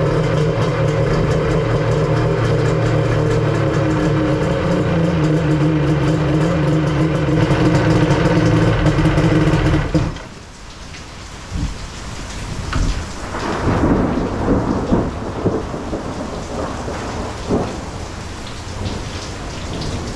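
Kawasaki 1100 two-stroke triple jet ski engine running steadily, then cutting off suddenly about halfway through. Heavy rain pouring and splashing is left.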